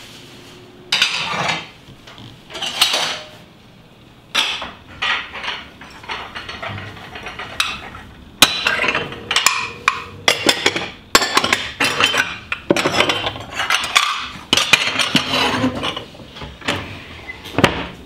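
Ceramic plates being dried with a cloth and put away into a kitchen cabinet. Two short rubbing swishes from the towel come first, then repeated clinks and knocks of plate on plate and on the shelf, coming thickest in the second half.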